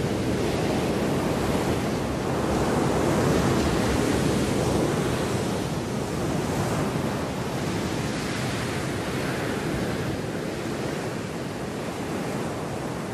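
Rough surf breaking on a beach with strong wind blowing: a steady rushing noise that swells a little a few seconds in and eases slightly toward the end.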